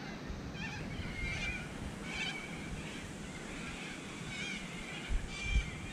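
A bird calling over and over in short arched notes, about one a second, over a low rumble.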